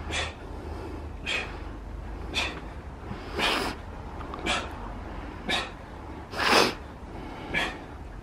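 A man's sharp, forceful breaths out, about one a second, in time with exercise reps. Two of them, about three and a half and six and a half seconds in, are longer and louder.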